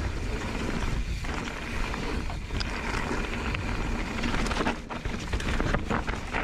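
Mountain bike descending a loose slate trail: tyres crunching over the stones and the bike rattling, a continuous rough noise with many small knocks.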